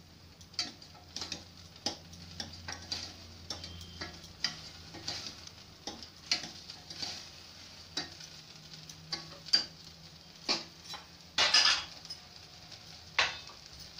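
Steel spoon scraping and clinking against the inside of a stainless steel pressure cooker as broken rice and dry fruits are stirred and roasted in ghee, over a faint steady sizzle. The scrapes come irregularly, about once or twice a second, with the longest and loudest one near the end.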